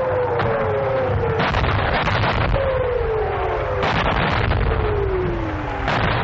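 German Nebelwerfer multi-barrelled rocket launchers firing: a string of overlapping wails, each falling in pitch for about a second, broken by sharp bangs over a constant low rumble. The recording is an old wartime field recording, dull in its top end.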